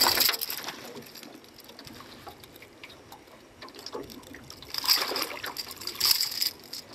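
A hooked yellow peacock bass splashing hard at the surface beside the boat, with quieter sloshing after it and two shorter splashes near the end as the fish thrashes while being lifted out.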